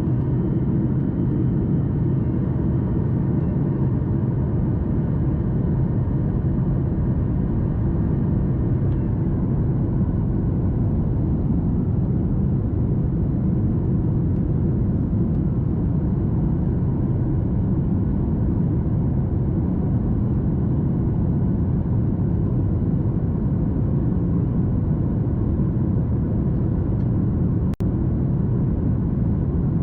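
Steady airliner cabin noise inside a Boeing 737 MAX 8: a constant low rumble of its CFM LEAP-1B engines and the airflow, with a faint steady whine above it. A brief break near the end sounds like a cut.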